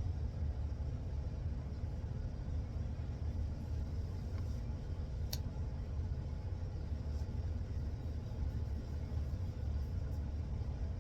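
A steady low rumble, with a faint click about five seconds in.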